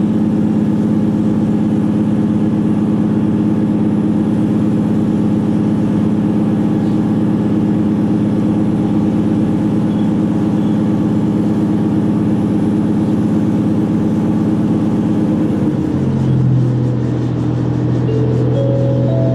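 Inside a JR Hokkaido H100 'DECMO' diesel-electric railcar under way: a steady drone from its diesel-electric drive. About 16 seconds in, the note changes to a lower, deeper hum.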